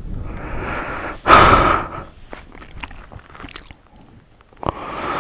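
Rushes of air hitting the microphone, a loud one about a second in and a shorter one near the end, with scattered small clicks and taps between them.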